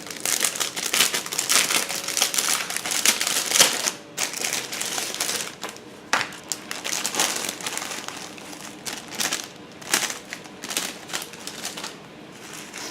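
Packaging crinkling and rustling as a kit is unwrapped by hand. Dense for the first four seconds or so, then sparser rustles with scattered sharp clicks.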